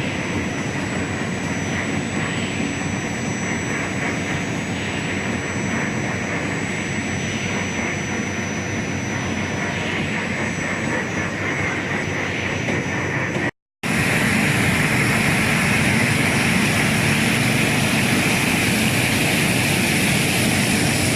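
Steady, loud machinery noise that drops out abruptly for a moment about two-thirds of the way through, then carries on slightly louder.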